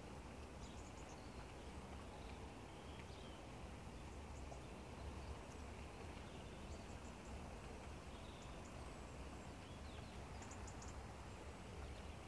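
Steady, faint hiss of light rain with a low rumble underneath, and a few short, high bird chirps scattered through.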